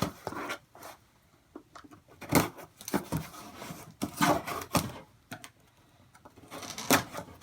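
Packaging being handled by hand as a cold air intake filter is unwrapped: irregular crinkles, rustles and light knocks, some of them sharp.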